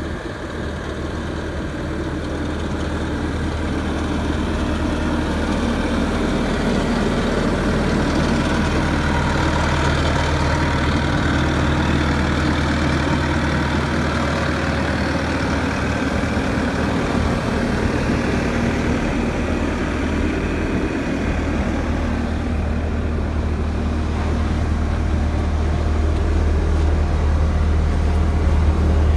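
Bobcat S650 skid steer's diesel engine running steadily.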